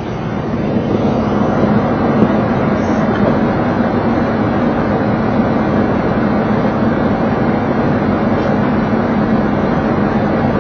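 Steady flight-deck noise of a Boeing 737 on final approach with landing gear down: airflow rushing past the cockpit and the engines running, with a low steady hum underneath. It grows a little louder about a second in, then holds steady.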